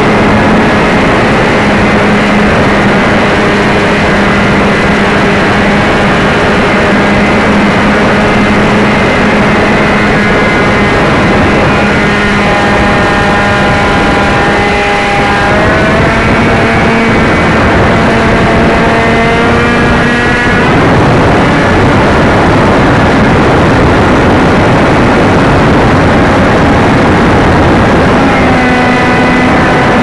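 Brushless electric motor and 6x5 propeller of an AXN foam RC plane, heard onboard under heavy wind rush on the camera's mic. The motor whines at a steady pitch, climbs in pitch about halfway through, and cuts out about two-thirds of the way in, leaving only wind noise while the plane glides. The whine returns near the end.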